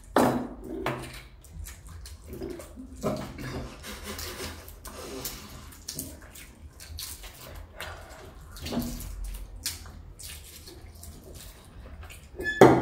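Hard-boiled eggs being peeled by hand: irregular crackling and rustling of eggshell, with small clicks.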